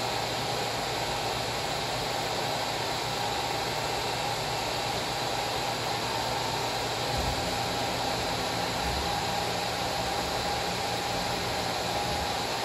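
Steady fan-like hiss and hum of a large-format gantry laser marking machine running, with a deeper hum coming in about seven seconds in as the gantry and marking head travel.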